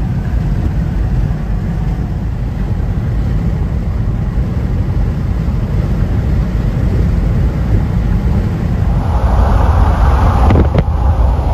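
Steady low tyre and road rumble of a car driving at highway speed, heard inside the cabin. About nine seconds in a louder rushing noise joins it, with a couple of sharp knocks shortly after.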